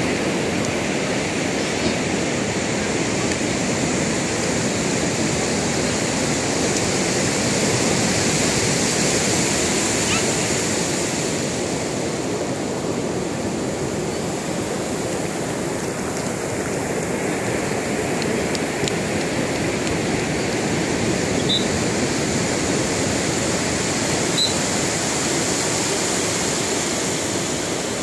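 Ocean surf: waves breaking and washing up a flat sandy beach, a steady rushing noise.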